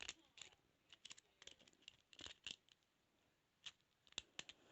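Faint, irregular metallic clicks and scrapes of a lock pick and tension wrench working inside a padlock's keyway during single-pin picking.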